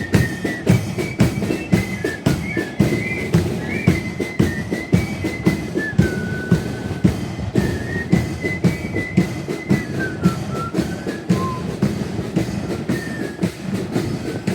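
Flute band playing a tune: a high flute melody over a steady, regular drumbeat.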